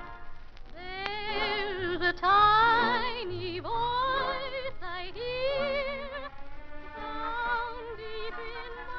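Orchestral music with singing: from about a second in, a voice sings long held notes with wide vibrato and sliding attacks over the orchestra, from an old radio broadcast recording.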